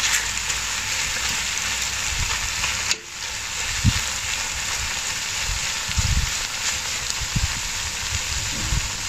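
Turkey breast chunks sizzling steadily as they fry in hot oil in a cast-iron Dutch oven, while tongs press the meat down. A few dull low thumps come through the sizzle.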